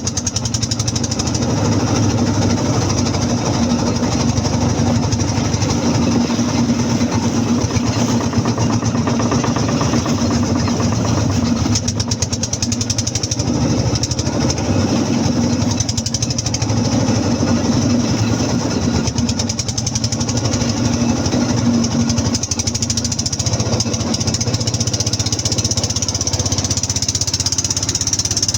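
Motorboat engine running steadily with a fast knocking beat.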